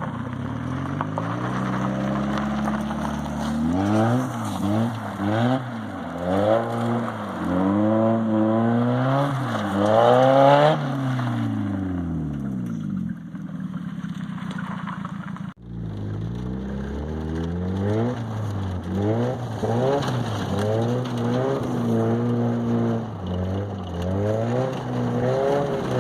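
Car engine revving over and over, each rev rising and falling in pitch; the sound breaks off briefly about halfway through and the revving resumes.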